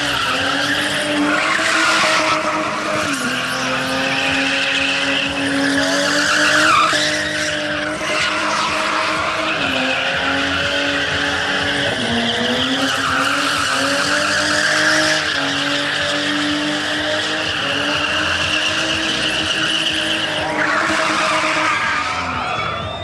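A BMW spinning doughnuts on concrete. Its engine is held at high revs, dipping briefly now and then, over a steady squeal of the spinning rear tyres.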